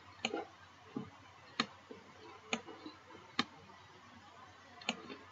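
Computer mouse clicking: about six short, sharp, faint clicks at irregular intervals.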